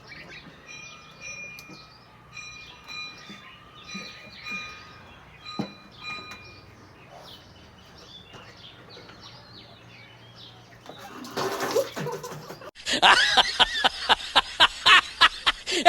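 Birds chirping faintly in the background with a few small clicks, then, about three seconds from the end, sudden loud laughing in quick bursts.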